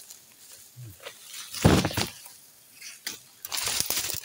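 Footsteps and rustling through leaf litter and fallen bamboo: a heavy thump about a second and a half in, then a run of dry crackling near the end.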